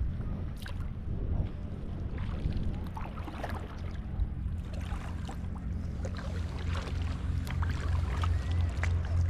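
Kayak paddle strokes: the blades dip and splash in the sea and water slaps against the plastic hull, over a steady low hum.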